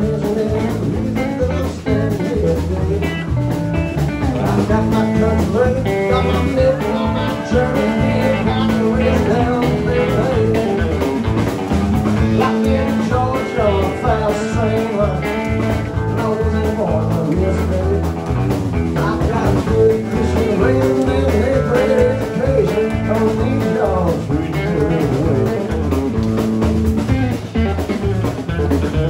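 A live rock band plays a country-blues song: electric guitar over electric bass and a drum kit.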